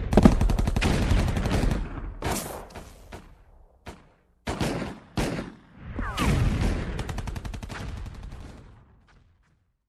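Battle soundtrack of gunfire: bursts of rapid, machine-gun-like shots, a long one at the start, short ones in the middle and another long one later that dies away near the end.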